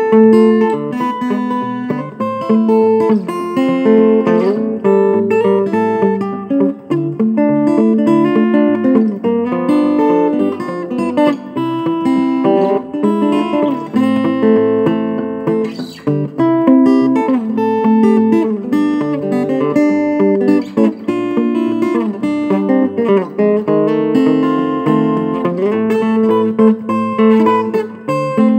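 Solo steel-string acoustic guitar played fingerstyle in Travis-picking style: a plucked alternating bass line under a quicker melody, running without a break.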